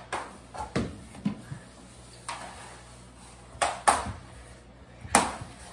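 Scattered sharp clacks and knocks of indoor floor-hockey play: a hockey stick striking the hardwood floor during play, with a softer scrape about two seconds in. The loudest clacks come just before four seconds in and just past five.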